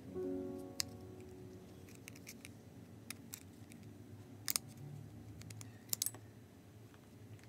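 Scattered small, sharp clicks and taps of tweezers and a small screwdriver on the metal brackets and connectors inside an opened iPhone, a few at a time with pauses between.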